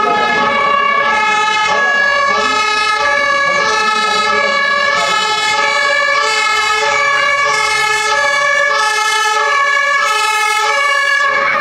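A fire engine's German two-tone siren (Martinshorn) sounding as the MAN fire truck approaches, switching steadily back and forth between a high and a low note about every two-thirds of a second.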